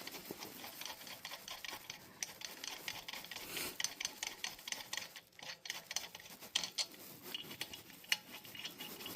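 Quiet, irregular light clicks and scraping from hand work on a truck's wheel spacer and hub studs, thickest in the middle of the stretch.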